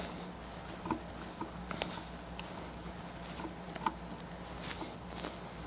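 Scattered light clicks and taps of fingers handling small screws at a Panasonic Toughbook CF-30's lid hinges, over a faint steady hum.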